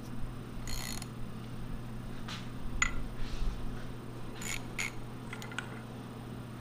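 Several light metallic clinks and clicks from hands working a steel machine vise on a milling machine table, as the vise is loosened to free the workpiece. One or two of them ring briefly. A steady low hum runs underneath.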